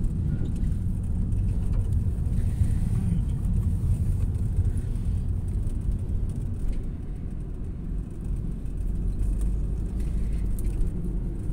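Steady low rumble of engine and road noise heard inside the cabin of a moving Mazda car.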